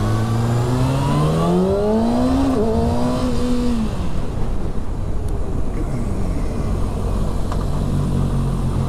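Kawasaki Ninja ZX-6R's inline-four engine accelerating, its note climbing for about two and a half seconds and holding before the throttle closes about four seconds in. After that comes rough road and wind noise with the engine low, and a steady engine note returns near the end. It is heard from a microphone inside the rider's helmet.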